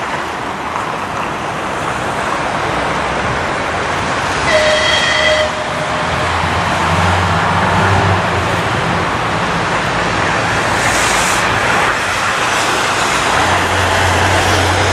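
TEP70BS diesel locomotive approaching at the head of a passenger train, a steady rumble with its low engine drone growing stronger from about seven seconds in. A short horn blast of about a second sounds a little after four seconds in.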